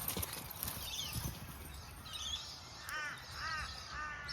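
A crow cawing three times in quick succession, about half a second apart, starting about three seconds in; the last call is longer and flatter.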